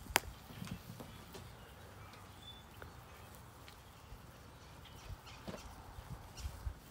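Quiet outdoor background with a sharp click right at the start, then faint scattered knocks and a light thud as a wooden Adirondack chair is picked up and carried across a yard.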